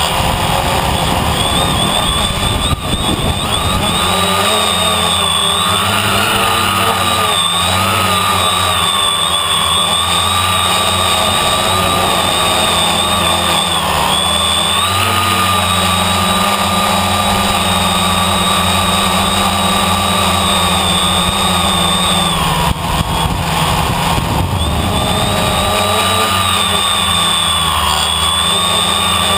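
Electric motors and propellers of a small camera drone whining steadily, the pitch wavering slightly as the throttle changes. Wind rushes briefly on the microphone about 3 seconds in and again around 23 seconds.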